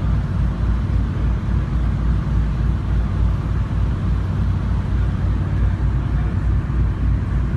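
Loud, steady low rumble with a rough, fluttering bottom end, cut in and cut off abruptly.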